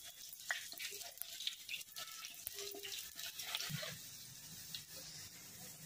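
Raw banana slices frying in hot oil for banana chips: a quiet, steady sizzle with scattered small crackles, as the slices are stirred with a slotted metal spatula.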